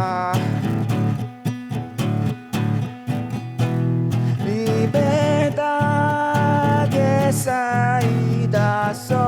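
Song with strummed acoustic guitar and a singer's voice. The first half is mostly quick chords, and long, wavering sung notes are held in the second half.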